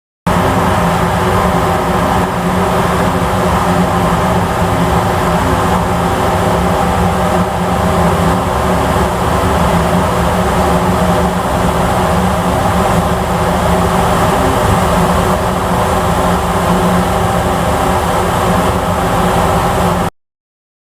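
Steady drone of a ferry's engines heard from on board, with a few low level tones over a wash of wind and water noise. It starts suddenly and cuts off near the end.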